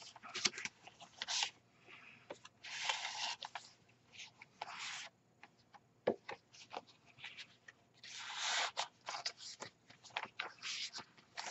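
Paper pages and card inserts of a handmade junk journal rustling and sliding as they are handled and turned, in several short bursts with light taps between them.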